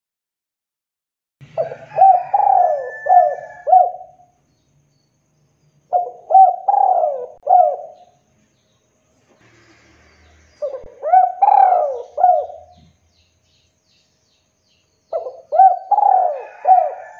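Male spotted dove (tekukur) calling its cooing song: four phrases, each a quick run of several rounded coos, about every four to five seconds.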